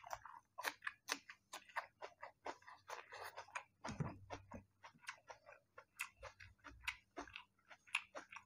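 Close-up chewing of a hand-eaten mouthful of rice and mushroom curry: faint, irregular wet mouth clicks and lip smacks, several a second, with a soft thump about four seconds in.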